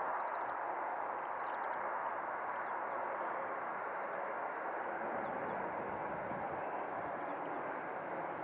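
Boeing 747-400 jet airliner's four engines running at taxi power, a steady rushing noise with no rise or fall, with a few faint bird chirps over it.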